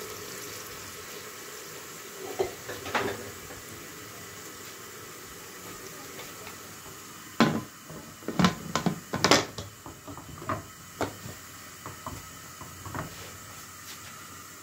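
Aluminium pressure cooker lid being put on and locked shut: a couple of knocks about two and a half seconds in, then a run of sharp metal clanks from about seven to thirteen seconds, the loudest near the middle, over a steady faint hiss.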